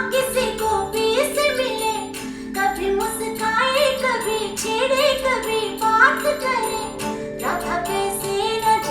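A song with singing and percussion, played back through loudspeakers driven by an AIYIMA A07 MAX stereo amplifier.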